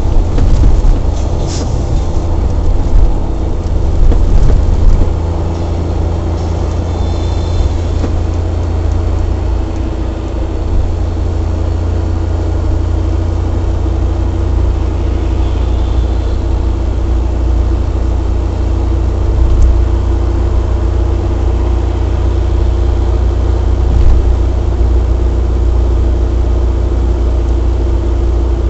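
Suzuki Jimny JB23 running at highway speed: a loud, low rumble with a steady hum, uneven for about the first ten seconds and then steady. The owner reports an abnormal noise at highway speed that develops into judder.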